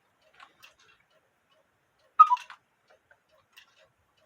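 Cuckoo clock calling one "cu-ckoo" about two seconds in, a higher note then a lower one from its two bellows whistles, over the steady ticking of the movement. A couple of faint mechanical clicks come shortly after the start.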